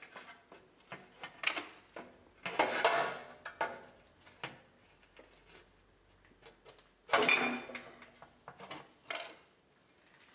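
Metal transmission pan and pry bar knocking and scraping against the transmission case and shift-cable bracket as the pan is worked up into place. The sound is a scattered series of short metal clanks and scrapes, loudest about three and seven seconds in.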